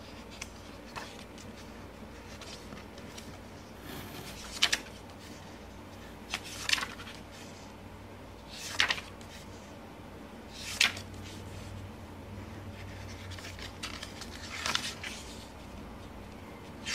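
Pages of an album photobook being turned by hand: about five short paper swishes, a couple of seconds apart, over a low steady hum.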